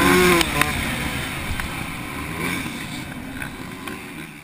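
Two-stroke motocross bike engine (TM Racing MX 144) running under throttle, its pitch rising and falling, with wind rushing over the microphone. The sound fades out steadily toward the end.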